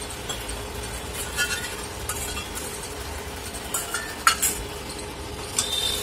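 A steel spoon clinks and scrapes against a steel bowl and a pressure cooker as spices soaked in water are tipped into frying mutton and stirred. There are a few sharp clinks, the loudest about four seconds in, over a steady faint hum.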